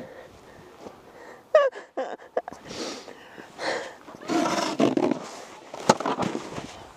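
A snowboarder's wordless grunts and groans while picking up after a fall, including a short falling-pitch cry about a second and a half in. These are mixed with several rough bursts of clothing and board scraping and rustling on snow, and a few sharp knocks.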